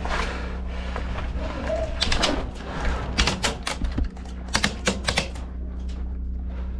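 Airsoft guns firing sharp, clicky shots in short rapid strings: three clusters between about two and five seconds in.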